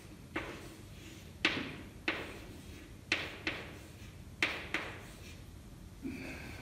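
Chalk tapping and scraping on a blackboard as a number is written, about eight sharp taps at irregular intervals, each dying away quickly.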